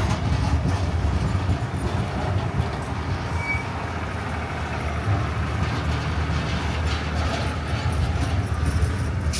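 Passenger train carriages rolling past, steel wheels running on the rails with a steady low rumble.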